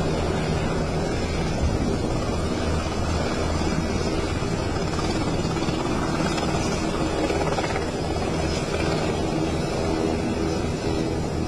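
Helicopter running steadily, a continuous engine and rotor noise with a low hum.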